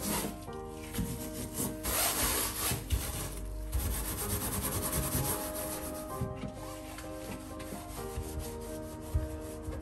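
Metal scouring pad scrubbing a soapy stainless-steel gas hob around a burner, a continuous scratchy rubbing in uneven strokes with a few light knocks.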